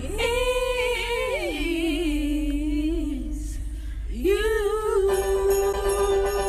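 Girls singing along to Christmas music on a car stereo: a sung phrase, a short break about four seconds in, then one long held note. A low, steady car rumble runs underneath.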